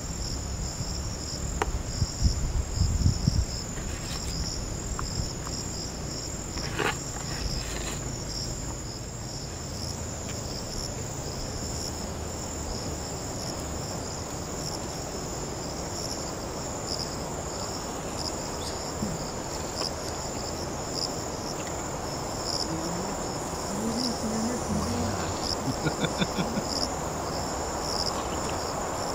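A steady, high-pitched chirring of an insect chorus throughout. About two to three seconds in there are some low rumbling thumps, and near the end some faint wavering sounds.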